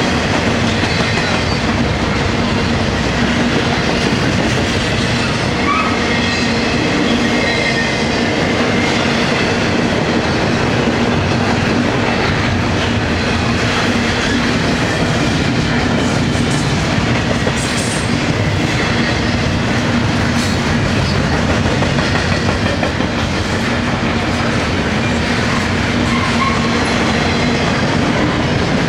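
Double-stack intermodal container cars of a freight train rolling steadily past: the loud, even noise of steel wheels on rail, with a steady low hum underneath.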